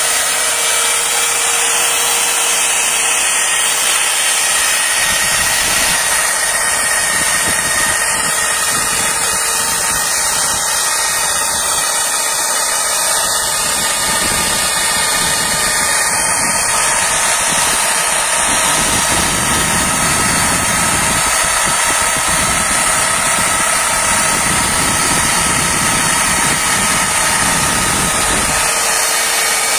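Hand-held plastic extrusion welder running steadily while it extrudes a weld bead onto an HDPE liner seam: an even hiss with a steady motor whine. A low rumble swells and fades through the middle.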